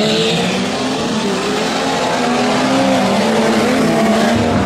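A tuff truck's engine running hard under throttle, its pitch held high and wavering slightly as the driver works the throttle, over a rush of tyre and dirt noise.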